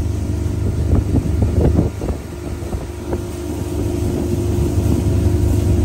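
Fishing boat running across the water under motor power: a steady engine drone and hum under heavy wind noise on the microphone, with a few short knocks about a second or two in.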